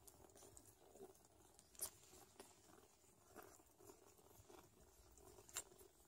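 Faint wet clicking and smacking of newborn Sphynx kittens suckling, with the mother cat licking a kitten; two sharper clicks stand out, about two seconds in and near the end.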